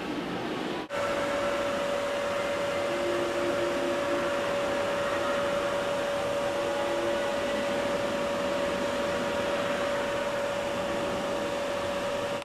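Steady mechanical whirring noise with a constant mid-pitched whine, like a running fan or blower. It starts abruptly about a second in, after a brief dropout.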